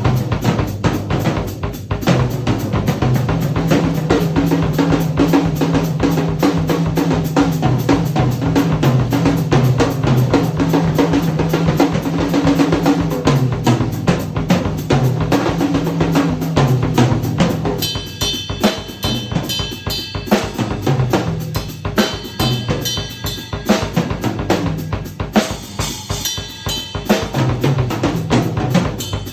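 Yamaha Recording Custom drum kit played in an improvised groove: rapid strokes on bass drum, snare and toms with their low pitches ringing. About eighteen seconds in the playing gets sparser and a little quieter, with a high metallic ringing over it.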